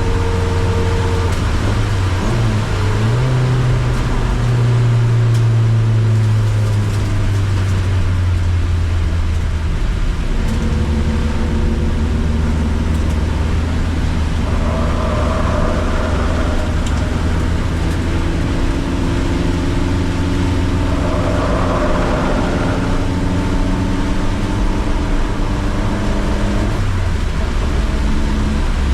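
Car engine running hard on a race circuit, its note rising and falling several times as it accelerates, lifts and changes gear.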